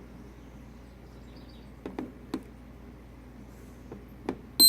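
Buttons on a digital magnetic kitchen timer clicking about four times, then one short, high beep from the timer near the end.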